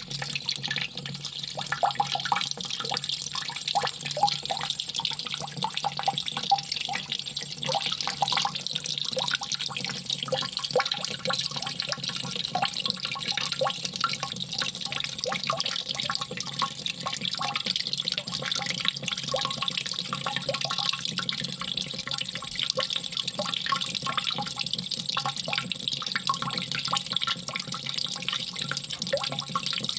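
Water running and trickling steadily, with a constant patter of small drips and splashes.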